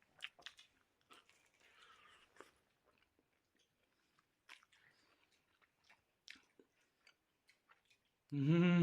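Someone chewing and biting into homemade pizza close to the microphone: faint, scattered crunches and small mouth clicks. A brief loud voice sounds near the end.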